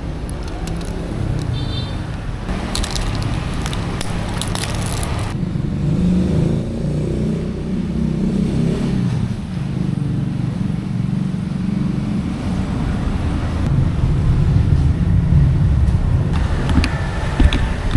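Street-market background with a motor vehicle engine running in a steady low rumble. For a few seconds early on there is louder rustling and crackling, and there are a few sharp clicks near the end.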